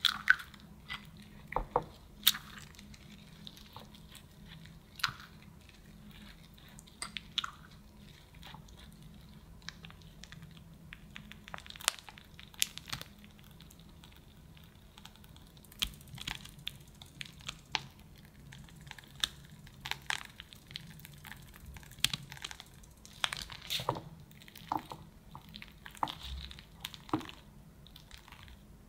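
Close-up sounds of cake assembly: a piping bag crinkling as it is squeezed and cream squishing out of its metal nozzle onto a sponge layer, then a metal offset spatula spreading and scraping the cream. Scattered small taps and clicks throughout.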